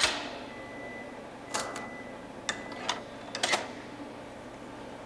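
Sharp clicks and knocks of equipment being handled. One loud click comes at the very start and dies away, then a cluster of lighter clicks follows from about one and a half to three and a half seconds in. A faint steady high whine sounds underneath for a couple of seconds.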